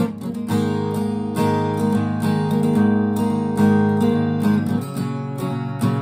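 Acoustic guitar strummed in a steady rhythm of chords, changing chord about two-thirds of the way through.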